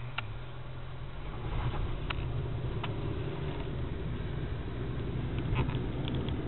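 Hyundai car driving on a highway, heard from inside the cabin: a steady low rumble of engine and tyre noise that grows louder about a second and a half in, with a few faint clicks.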